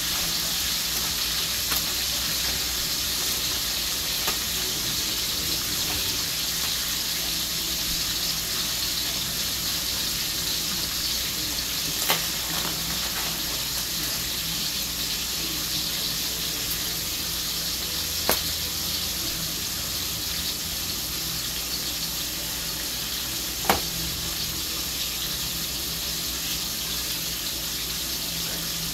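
Steak sizzling steadily in a cast-iron skillet, with three sharp clicks spread through it.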